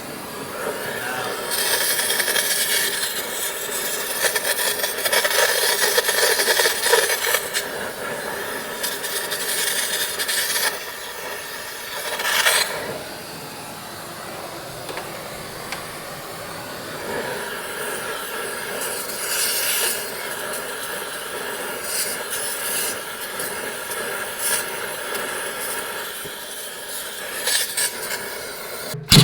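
Rasping, scraping work noises in several bouts of a few seconds each, the sound of hands and tools working on metal parts.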